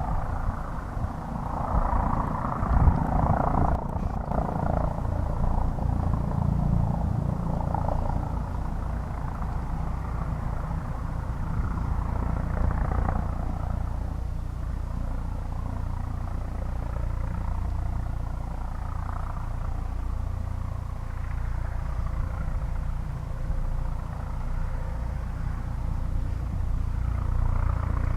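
Rescue helicopter running, its engine and rotor making a steady low noise that is somewhat louder in the first few seconds.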